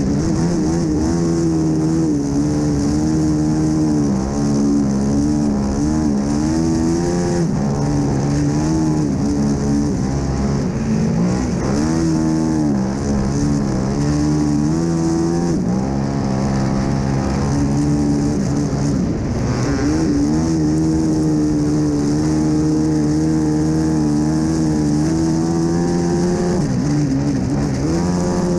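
Racing quad (ATV) engine run hard on a studded-tire ice oval, its pitch falling and climbing again several times as the throttle is eased for the corners and opened down the straights.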